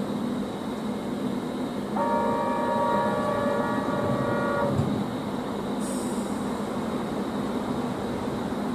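Keihan 800 series electric train standing at a platform with a steady hum. About two seconds in, a horn sounds one chord held for about three seconds, while the doors close. A short hiss of air follows about a second later.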